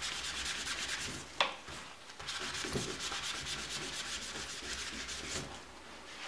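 Crumpled kitchen paper towel rubbed quickly back and forth over a wax-coated ceramic-paper card, buffing the wax to a high gloss. A single short knock comes about a second and a half in.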